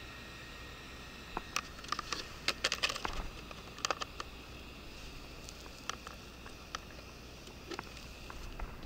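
Sharp clicks and taps as a plastic-bodied 1:10 RC car is handled and set down on asphalt, bunched together in the first few seconds with a few more later, over a faint steady hum.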